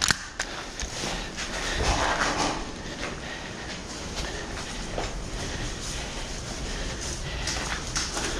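Footsteps and gear rustling on a gritty concrete floor, with a few sharp clicks near the start from the gas blowback rifle being reloaded.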